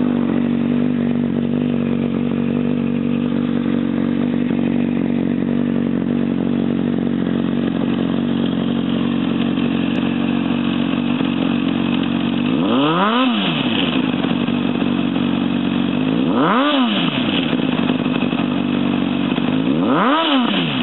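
2006 Honda CBR600RR inline-four engine idling steadily through a Scorpion titanium slip-on exhaust, then blipped three times in the second half, each rev rising and falling quickly.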